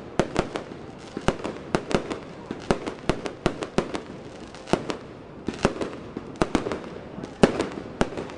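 Aerial fireworks bursting: a rapid, irregular barrage of bangs, several a second, with no gaps.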